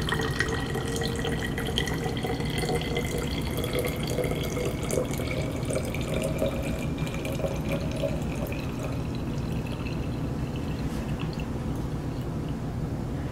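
Wine and muddled cucumber-mint mixture being poured from a glass tumbler into a chilled glass milk bottle. The pouring note rises steadily in pitch as the bottle fills, then stops near the end.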